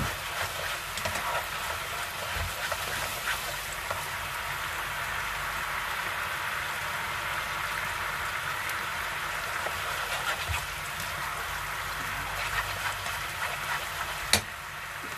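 Beef broth sizzling and bubbling in a pan as it boils down into a thick sauce, a steady crackle. A single sharp knock near the end.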